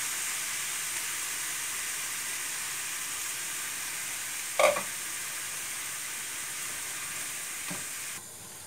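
Morel mushrooms with onion and red pepper frying in a pan, with a steady sizzling hiss. A single sharp knock sounds about halfway through and a fainter one near the end.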